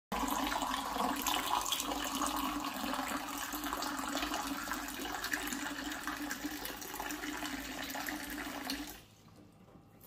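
A thin stream of water poured from a height into a small glass jug in a stainless steel sink, splashing steadily; the pour stops about nine seconds in.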